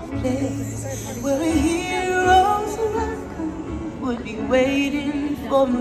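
The nighttime castle show's soundtrack music, with singing voices carrying a wavering melody over the accompaniment.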